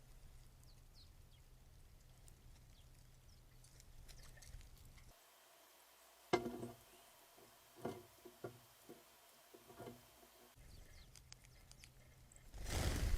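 Faint short chirps of small birds, with a few sharp knocks in the middle and a brief burst of noise at the very end.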